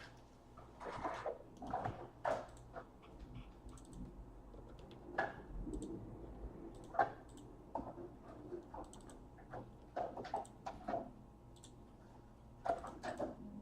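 Baseball trading cards and their packs being handled: scattered soft clicks, taps and rustles as packs are opened and cards are flipped through.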